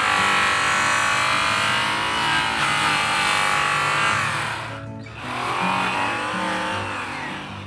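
Handheld electric polisher spinning a fast-cut buffing wheel against an aluminum truck wheel during primary cutting with rouge: a high motor whine that winds down about five seconds in, cuts out for a moment and winds back up. Background music underneath.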